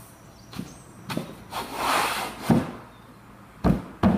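Wooden panels of a flat-pack drawer box being slid into their rebates, with a scraping rush about a second and a half in and several sharp wooden knocks as the pieces seat together.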